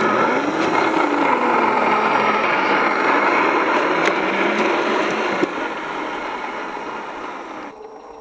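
Scale RC crawler's 27-turn brushed 540 electric motor and geartrain whining under load as it crawls up a dirt bank, the pitch rising and falling with the throttle. It stops abruptly near the end.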